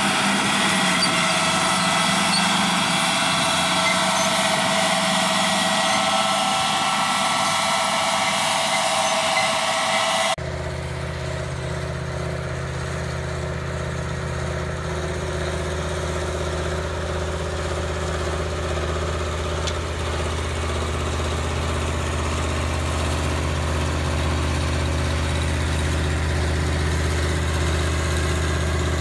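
For about the first ten seconds, a steady high machine whine made of several held tones; then, after an abrupt change, the diesel engine of a Massey Ferguson articulated four-wheel-drive tractor running steadily under load as it pulls a disc harrow, a low even drone.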